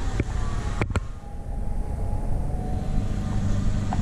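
Low steady rumble of a motor vehicle engine running, with two sharp clicks just under a second in.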